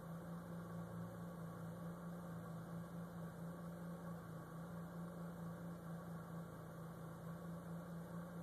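Stock 2010 Mitsubishi Lancer Evolution X's turbocharged 2.0-litre four-cylinder idling roughly: a steady low hum that wavers in level about twice a second. It is a shaky idle whose cause the owner has not found after checking the vacuum lines and intake.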